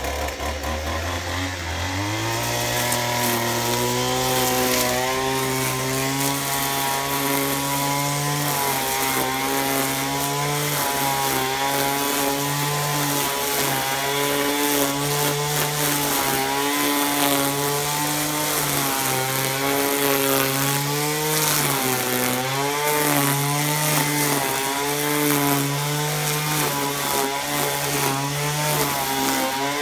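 Poulan Pro 25cc two-stroke string trimmer engine revving up from idle about two seconds in, then running steadily at cutting speed with small rises and dips in speed as the line cuts grass and weeds.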